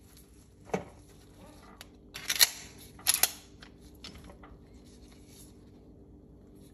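Metal clicks and scrapes from the slide of a Tanfoglio Stock 2 pistol as its parts are worked loose by hand during field-stripping. There is a single click about a second in, louder clattering clicks a little past two seconds and again around three seconds, and then a few light ticks.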